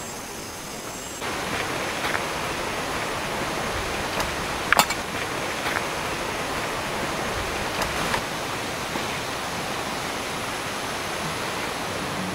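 Steady rain, a dense even hiss that grows a little louder about a second in, with a few sharp taps of drops, one louder than the rest near the middle.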